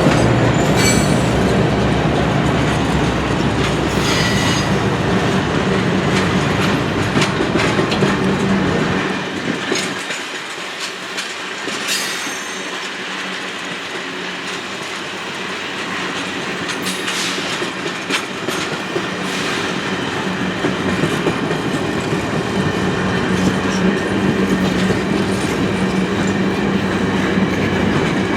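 Train passing, led by a diesel locomotive (CP 7015, an EMD SD70ACu): the low engine rumble fades about a third of the way in and builds again near the end. Throughout, wheels click over rail joints, with a few brief high wheel squeals.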